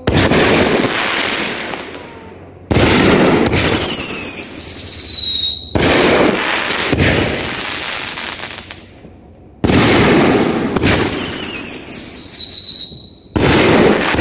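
Aerial fireworks going off: five sudden loud bursts a few seconds apart, each fading over a couple of seconds, with a high whistle falling in pitch twice.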